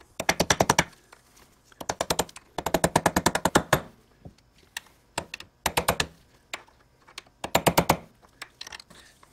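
A hammer tapping a car door check's metal housing on a bench vise, crimping the housing tabs back down. The strikes come in several quick runs of rapid, light taps with short pauses between.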